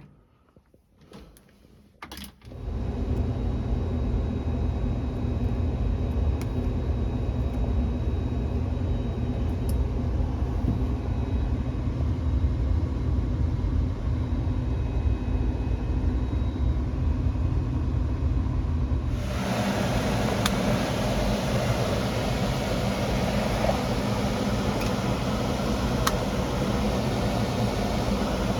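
Steady low machine rumble that starts suddenly a couple of seconds in; about two-thirds of the way through, a brighter hiss joins it.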